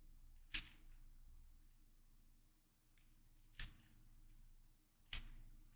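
YJ MGC 4x4 magnetic speedcube being turned while testing corner cutting: three sharp clicks as layers snap into place, spread over several seconds, with a fainter click between them.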